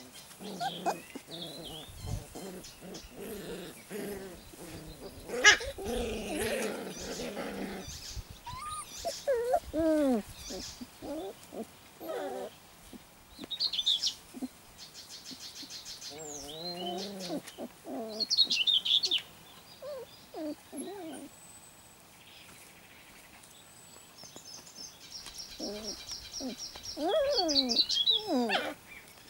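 Young puppies, about 4½ weeks old, play-fighting: short high-pitched yips and whines at intervals, with scuffling in the grass early on. Birds chirp and trill in the background.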